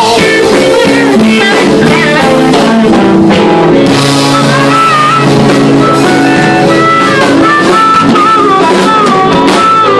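Blues band playing live: electric guitar over a drum kit.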